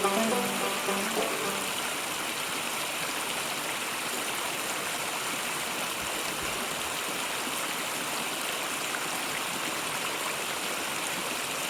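Creek water rushing steadily, an even rush that holds throughout; plucked banjo music fades out in the first second or so.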